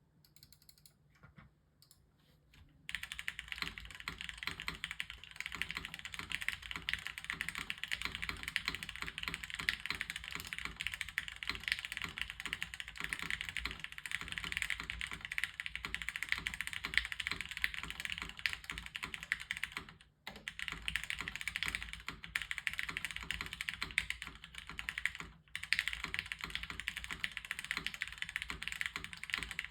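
Continuous fast typing on a mechanical keyboard with lubed, broken-in Cherry MX Hyperglide Black linear switches in an aluminium plate, under thick PBT Cherry-profile keycaps. Typing starts about three seconds in and stops briefly twice, around two-thirds of the way through and again a few seconds later.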